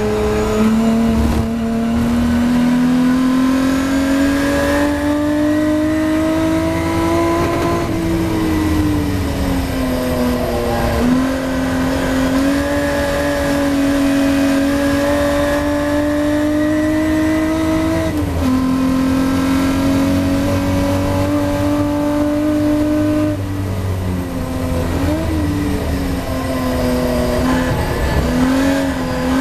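Ford Capri V6 race car's engine heard from the cockpit at racing speed. The note climbs steadily as the car accelerates and falls back several times as the driver lifts off and changes gear for corners.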